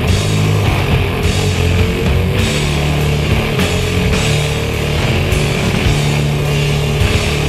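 Rock music soundtrack with a steady heavy beat.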